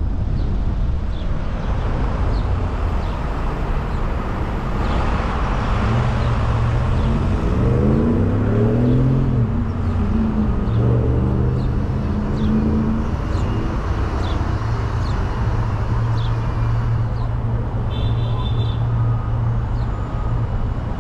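Steady rumble of tyre and road noise from a moving car, with an engine rising in pitch about seven seconds in as it accelerates, then settling into a steady hum.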